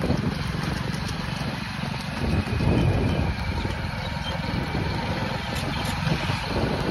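A vehicle's engine running steadily under an even rush of noise.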